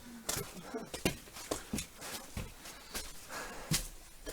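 Footsteps of people walking on a rocky path: irregular scuffs and knocks, roughly two a second.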